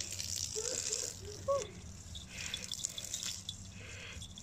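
Garden hose spraying a thin stream of water onto grass and a wet kitten, a hissing splatter that comes and goes in spells. A short voice-like sound rises about a second and a half in.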